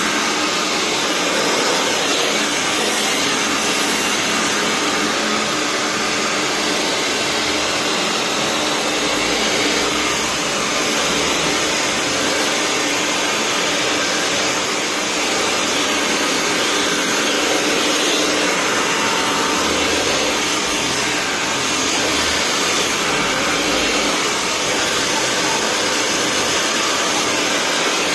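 Handheld hair dryer blowing steadily, with slight swells in level as it is moved along a section of hair being dried over a round brush.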